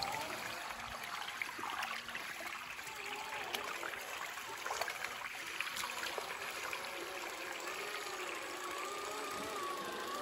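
A stream running, with the whine of an Axial SCX10 III 1/10-scale RC crawler's electric motor and gears wavering in pitch with the throttle, clearer and steadier near the end.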